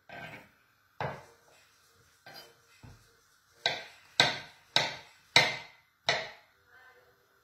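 Kitchen knife slicing mushrooms on a wooden cutting board, each cut ending in a sharp knock of the blade on the wood. There are about nine cuts at an uneven pace, with a quicker run of five in the middle.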